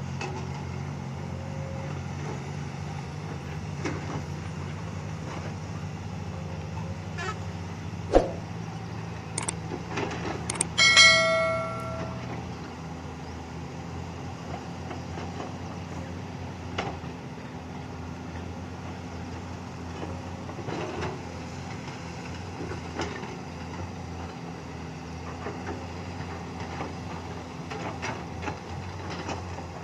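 Excavator diesel engine running steadily, with a sharp knock about eight seconds in and a loud ringing metal clang a few seconds later.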